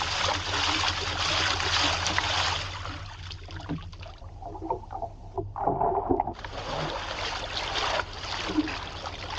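Lake water being splashed by hand into an open canoe to swamp it, a dense rush of splashing and sloshing that drops quieter and muffled for about three seconds in the middle before picking up again.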